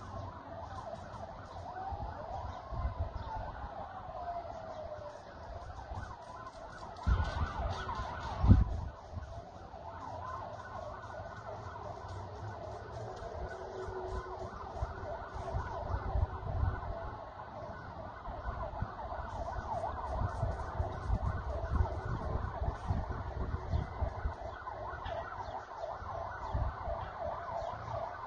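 Several emergency-vehicle sirens wailing at once, their pitches sweeping up and down and overlapping, over low rumbling gusts. There is a single loud thump about eight and a half seconds in.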